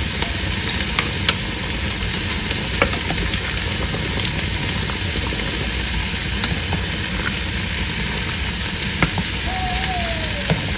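Pot of water bubbling steadily with rice and sweet potato chunks in it, stirred by a spoon that clicks against the pot now and then.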